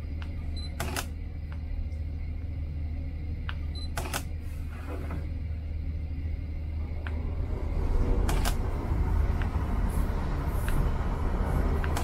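Sony A7 mirrorless camera's shutter firing, released by an infrared remote: a short high focus-confirmation beep then a sharp shutter click, twice in the first four seconds, with more clicks later. A steady low hum runs underneath, growing louder and rougher in the second half.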